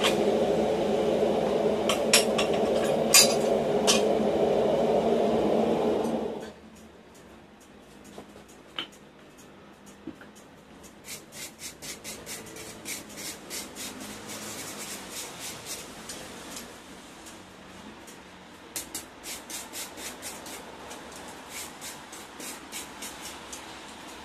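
A power tool's motor runs steadily and cuts off about six seconds in. After a short pause, a hand file rasps on the steel workpiece in quick, regular strokes, about two or three a second, with a brief break in the middle.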